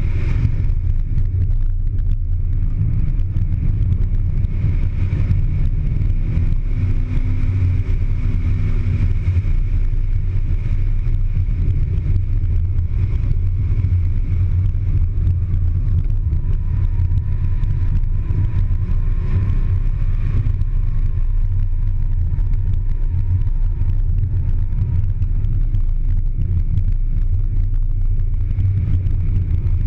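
A car driven at speed on a loose dirt rallycross course: engine running mixed with tyre and gravel noise, a steady heavy low rumble.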